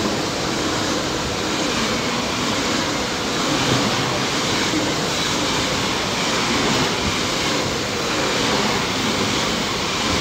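Deutsche Bahn ICE high-speed electric train passing by, a steady rushing noise of wheels on rails and air.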